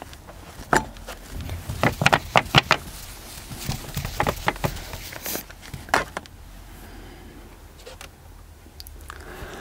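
Whiteboard eraser wiped across a whiteboard in quick strokes, with scattered knocks and taps against the board. It quietens after about six seconds.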